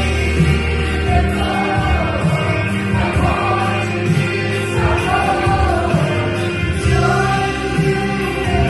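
Vocal ensemble singing a Christian gospel song in harmony over musical accompaniment with sustained low notes.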